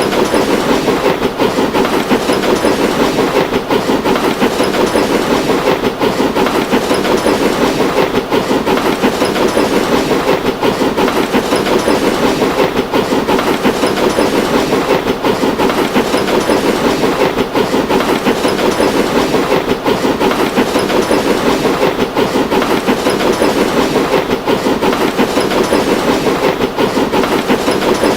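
A train running steadily along the rails, with a continuous clickety-clack of wheels on the track.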